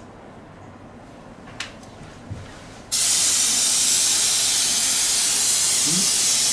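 Aerosol spray can, of the kind used for hairspray, spraying onto hair in one long, steady hiss that starts about three seconds in, after a quiet stretch.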